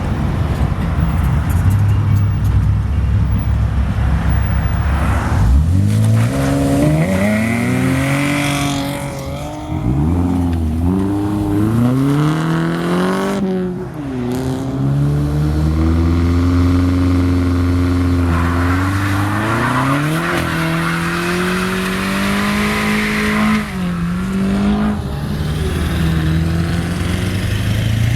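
Loud car engine running as it pulls out, revved up and down several times. The pitch climbs sharply about five seconds in, then rises and falls repeatedly.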